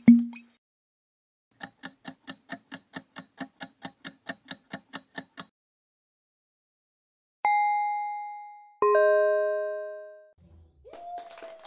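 Quiz-game sound effects: a rapid, even ticking of about five ticks a second for nearly four seconds, then a single ding followed a second and a half later by a lower, fuller chime that rings out, as the correct answer is revealed.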